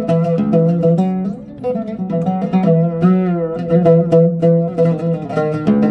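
Solo Arabic oud, made by Sabsaby, plucked in an improvised taqsim: quick runs of single notes over a repeated low note. One note bends in pitch about three seconds in.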